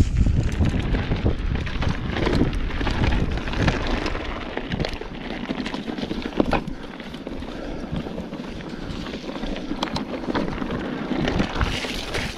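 Wind buffeting the microphone of a camera riding on a mountain bike, over the crunch of tyres on a loose, stony trail, with frequent knocks and rattles from the bike jolting over rocks.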